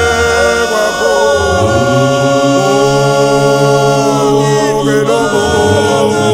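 Mixed gospel choir of men and women singing in close harmony without instruments, holding long chords over deep bass voices.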